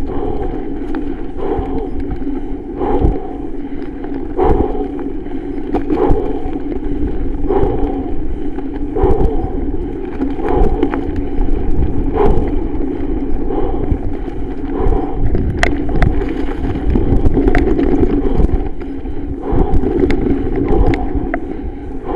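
Norco Range 7.1 mountain bike riding down dirt singletrack: a steady rushing rolling noise with a knock about every second and a half.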